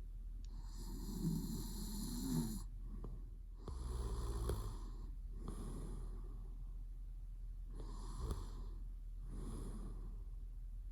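A man snoring in his sleep, five or six snoring breaths with short pauses between them. The first, about two seconds long, is the longest.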